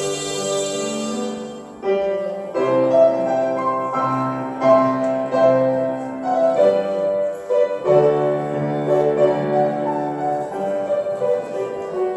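Harmonica music: a slow melody of held notes over sustained chords.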